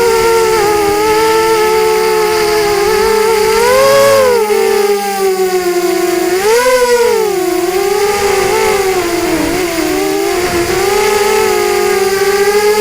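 FPV quadcopter's brushless motors whining, the pitch holding steady and then swelling up and back down with throttle about 4 seconds in and again about 7 seconds in, with a dip about 9 to 10 seconds in.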